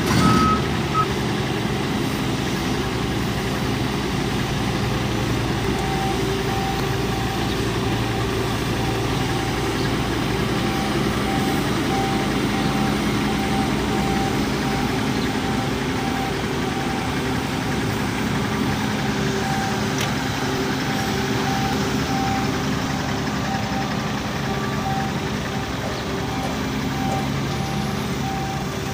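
Heavy diesel machinery running steadily, most likely the Volvo EC210D excavator's engine, with a backup alarm beeping. A short high beeping stops about a second in, and a lower, repeating beep starts about six seconds in and keeps going.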